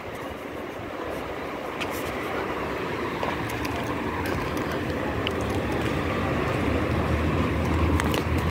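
Steady outdoor rumble that grows gradually louder, with a few faint clicks.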